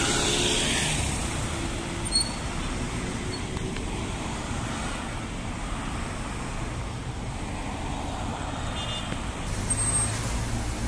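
Steady road-traffic noise from cars running in a parking lot, with a low steady hum joining near the end.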